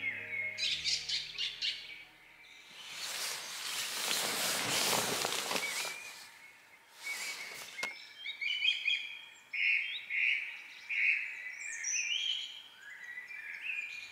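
Songbirds singing at dawn in woodland, a run of chirps and short warbled phrases. A rushing swell of noise rises and falls about three to six seconds in, and a briefer one comes near eight seconds.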